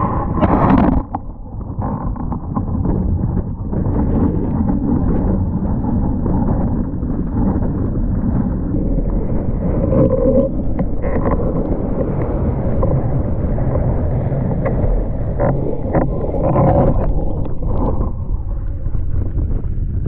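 Strong wind buffeting the microphone over water rushing and splashing under a sailing windsurf board, with a few sharper splashes as the board hits chop.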